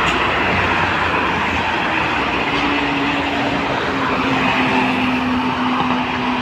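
Steady highway traffic from buses, trucks and cars passing on a toll road: continuous tyre and engine noise. A steady low engine hum comes in about two seconds in and holds.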